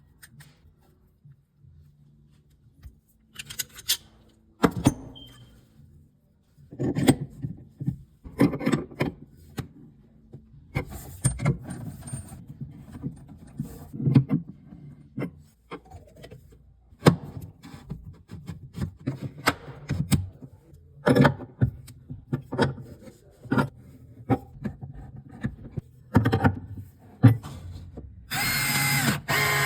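Hand work with plumbing parts and tools: a string of knocks, clatters and rubbing. Near the end, a cordless power tool's motor runs for about a second and a half.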